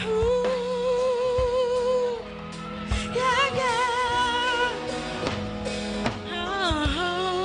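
A solo singer holding long, wavering notes in three phrases, over an instrumental accompaniment with drum beats.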